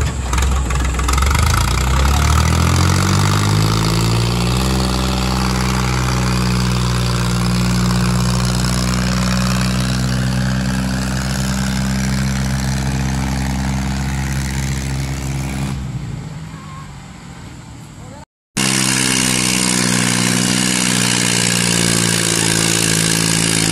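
Diesel engines of two tractors, a Kubota MU5501 and a John Deere 5050, revving up to high, steady revs under full load as they pull against each other on a chain in a tug-of-war. The pitch climbs over the first few seconds, holds steady, then drops away about two-thirds of the way through; after a break, the engines run again at steady high revs.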